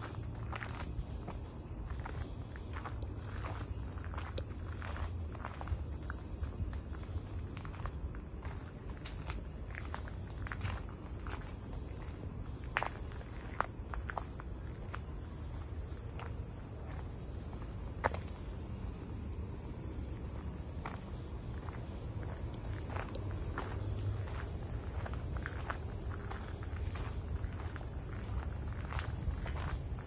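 Steady high-pitched insect chorus, a continuous shrill trilling, with the irregular footsteps of someone walking along a nature trail.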